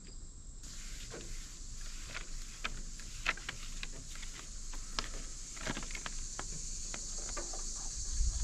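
Paper backing crackling and rustling in short, irregular clicks as it is peeled off a large vinyl decal by hand, over a steady high insect chirring.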